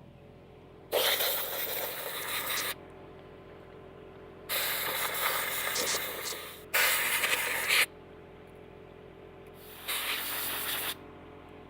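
Compressed-air blow gun fired in four hissing blasts, the first two about two seconds long and the last two about a second each, blowing junk out of a fitting.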